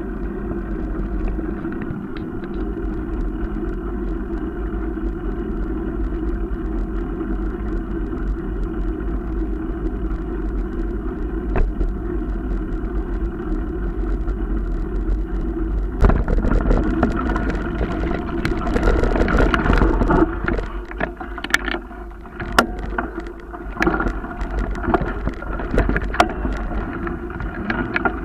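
Riding noise from a moving bicycle: a steady rumble of wind and tyres, joined about halfway through by frequent sharp clicks and crackles, as of tyres rolling over a gravel path.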